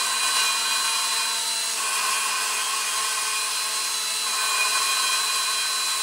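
Cordless drill running steadily at slow speed, spinning an engine valve on its seat through a homemade vacuum-hose-and-bolt lapping tool, grinding it in with valve grinding compound. It is a steady motor whine over a hiss, and the drill covers the sound of the compound on the seat.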